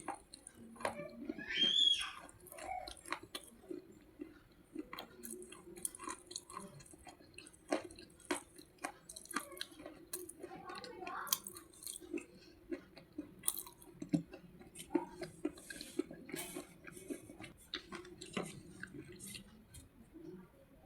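Close-miked chewing of slate pencils: irregular, sharp, brittle crunches and bites throughout as the chalky sticks are broken up in the mouth.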